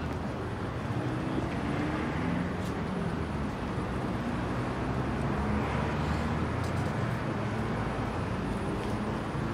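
Steady city street traffic noise, with a car's engine running as a Ford Mondeo drives up and pulls in to the kerb.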